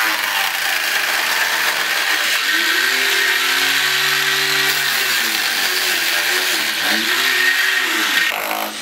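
Electric angle grinder running and cutting into the wall at the edge of the hole, a steady high whine with its motor note rising and falling twice.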